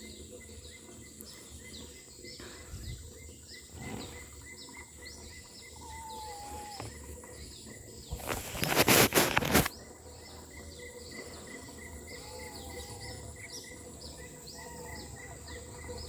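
Outdoor ambience with steady, rapidly repeated high chirps from small animals. About eight seconds in, a loud rushing burst lasts around a second and a half.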